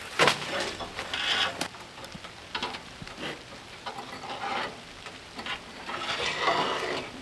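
Irregular rustling and scraping, a series of uneven scuffs about a second apart.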